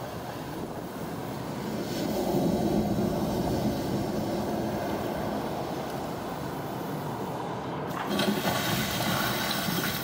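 Rushing water and surf sound effects played over outdoor loudspeakers as part of a light-show soundtrack, a steady wash that swells about two seconds in.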